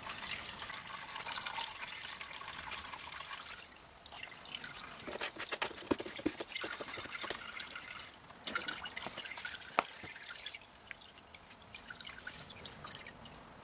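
Used paint thinner trickling and dripping through a coffee filter in a funnel into a container: a steady trickle for the first few seconds, then irregular drips, with one sharp tick about ten seconds in.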